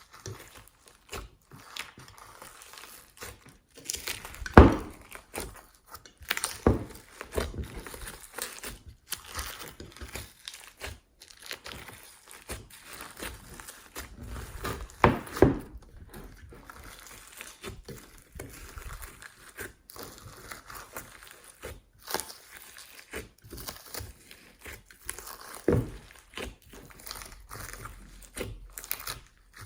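Glossy slime with clay, glitter and foam mixed in, being squeezed, pressed and folded by hand: a steady run of sticky crackles and small pops, with about three louder squelching pops spread through.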